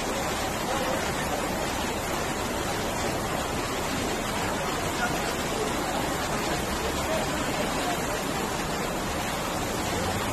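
Flash-flood torrent of muddy water rushing down a street: a steady, unbroken rush of water.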